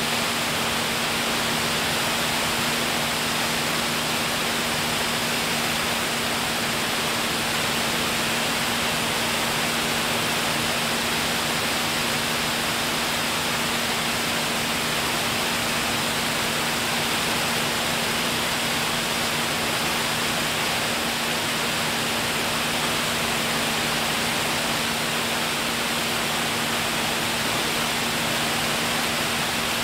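Steady rushing noise of an aircraft in flight, with a constant low hum underneath that stays even throughout.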